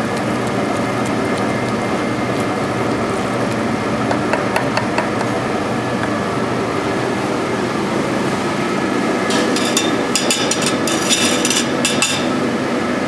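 Steady kitchen noise with a constant hum, then a run of sharp clicks and knocks from utensils and cookware being handled, most of them in the last few seconds.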